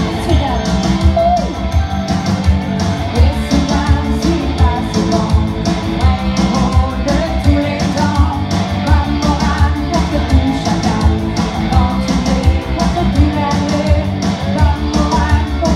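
Live band playing rock music: a woman sings lead into a microphone over electric guitar and a steady beat.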